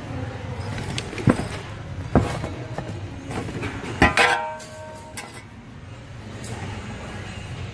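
Hard goods knocking and clinking together as they are handled in a bin, with a louder ringing clink about four seconds in, over a steady low background din.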